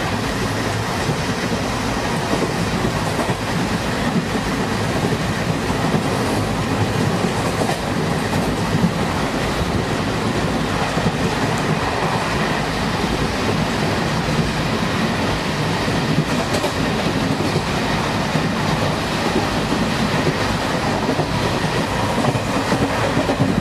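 Steady running noise of a moving Indian Railways passenger coach heard from inside, its wheels running on the track.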